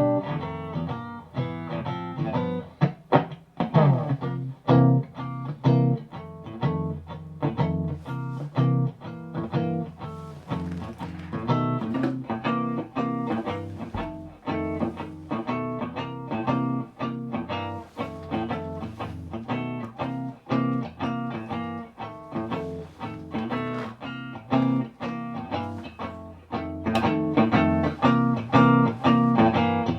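Electric guitar played through a guitar amplifier and speaker cabinet, a steady stream of picked notes and chords several a second.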